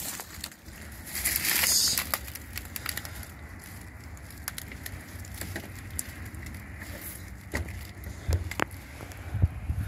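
Footsteps crunching and rustling through dry fallen leaves and brush, with a louder rustle about a second in and a few sharp crackles near the end.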